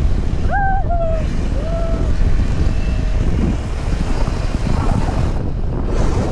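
Wind buffeting the microphone over a steady low road rumble while riding on an open vehicle, with a few short pitched tones in the first second or so.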